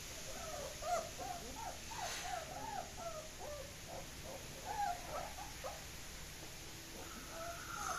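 German Shepherd puppies whimpering: a quick string of short, high whines that bend up and down, often overlapping, thinning out after about six seconds.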